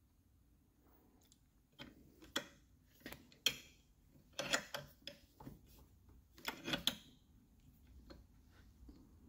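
Light metal clicks and clinks as a small hand clamp is worked onto an aluminium bracket and drilling jig, a scattered run of sharp taps that is busiest in the middle.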